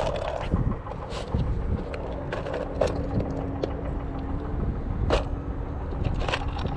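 Scattered clicks and clatters of a plastic tackle box and lures being handled, over a steady low rumble.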